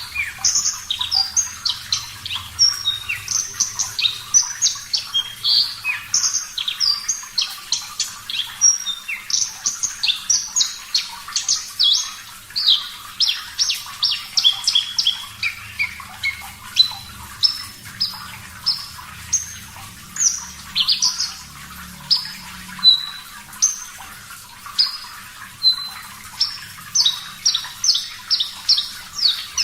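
Javan bush lark (branjangan, parva form) singing a continuous, rapid run of short, high, varied notes and trills. It sings over a faint steady hiss of running water.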